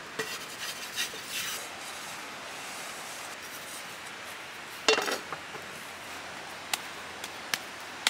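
Metal kitchenware clatter: an iron flat roti pan handled over a wood-fire hearth, with scattered clicks and scrapes at first and one loud knock with a short ring about five seconds in as the pan is set down on the stones. A few sharp metal clicks follow near the end, over a steady background hiss.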